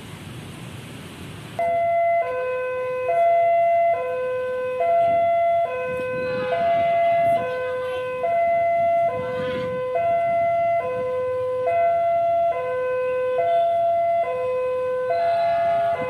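Railway level-crossing warning alarm sounding as the crossing closes for a train: a loud electronic two-tone signal that starts abruptly about a second and a half in, alternating a higher and a lower tone, each held just under a second.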